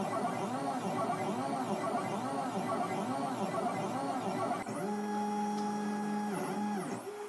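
Stepper motors of a 3D-printed CNC router driving the axes through ball screws on a dry run: an electric whine that rises and falls in pitch about twice a second as the axes speed up and slow down along curved moves, then about two-thirds of the way in holds a steady pitch for straight moves, ramping quickly up and down between them.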